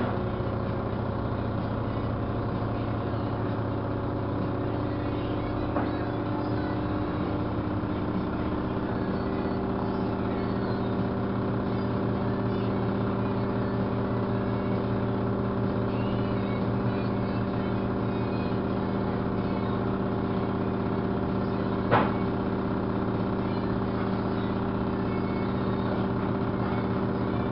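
LG washing machine spinning its load of pillows at a steady speed: an even motor hum with a steady whine. A single sharp click about three quarters of the way through.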